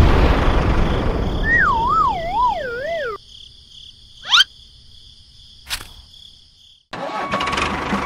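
Cartoon sound effects: a sudden crash-like burst, then a wobbling whistle that slides downward. About four seconds in comes a quick rising zip, followed by a short click. A tractor engine sound starts up again near the end.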